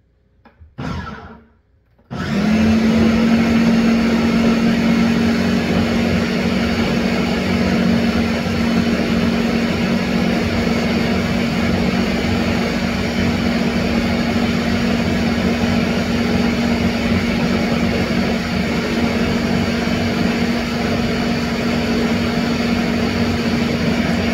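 Countertop blender puréeing roasted red peppers and garlic: after a brief noise about a second in, the motor starts about two seconds in and runs steadily at speed, with a steady hum under the blending noise.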